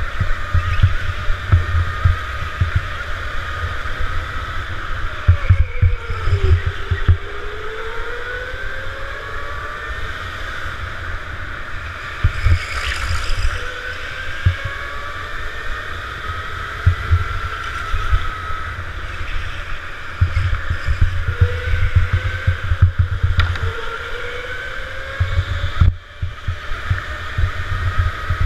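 Go-kart motor heard from on board, its pitch climbing repeatedly as it accelerates and then dropping back as it slows, over a rough low rumble from wind and chassis vibration on the microphone.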